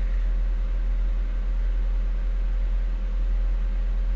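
A steady low hum with a faint hiss underneath, unchanging throughout.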